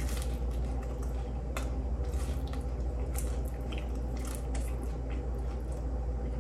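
Close-up mouth sounds of a person biting and chewing a slice of pizza: irregular small clicks and smacks scattered throughout, over a steady low hum.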